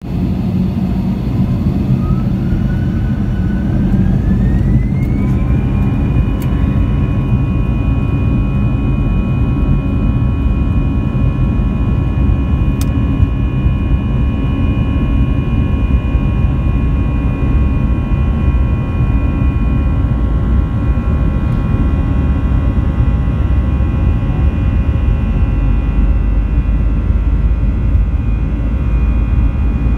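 Airbus A320-200's CFM56-5B turbofan engines spooling up to take-off thrust, heard from the cabin beside the engine: a whine rises over the first six seconds or so and then holds steady. Under it a loud low rumble runs on as the aircraft accelerates down the runway.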